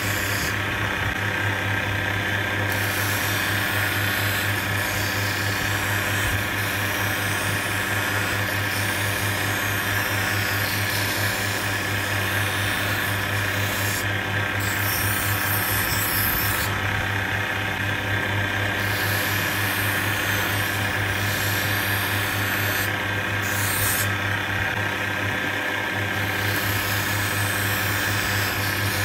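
Lens hand edger with its grinding wheel running steadily, an eyeglass lens pressed against the wheel to grind and smooth its edge. The grinding hiss comes and goes several times as the lens touches and lifts off, over the motor's constant hum.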